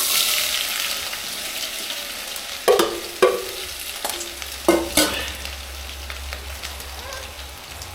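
Potato strips and garlic sizzling in hot oil in a pot. A utensil knocks against the pot four times in the middle as they are stirred.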